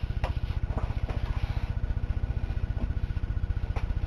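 Steady low machine hum that pulses rapidly and evenly, with a few faint knocks and clicks.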